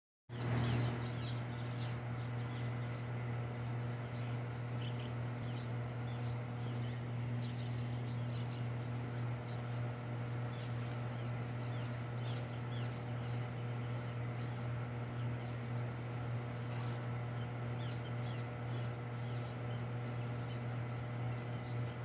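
A colony of cliff swallows calling with many short, quick chirps around their mud nests, over a steady low machinery hum.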